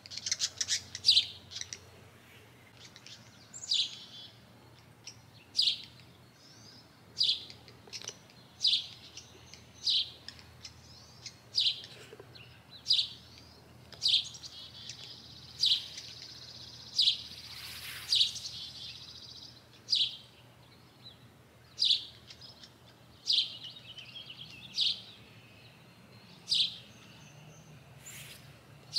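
Small songbird chirping: a short, high chirp repeated at a fairly even pace, about one every one and a half seconds. There is a quicker run of chirps at the start and a longer twittering stretch a little past the middle.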